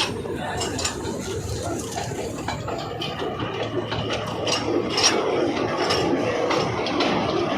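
Several people's voices chattering over one another, with scattered short clicks and clinks.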